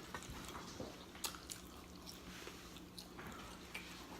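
Faint chewing of fried chicken, with about half a dozen soft, sharp mouth clicks scattered through it.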